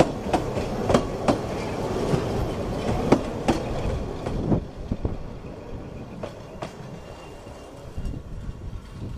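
Ffestiniog Railway narrow-gauge coaches rolling slowly past as the train pulls out, wheels clicking and knocking irregularly over the rail joints. The rumble fades from about halfway through as the last coach moves away.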